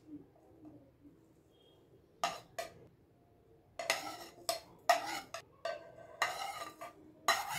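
A metal spoon scraping chopped herbs and green chillies off a plate into a glass bowl, in a series of short scrapes and knocks starting about two seconds in.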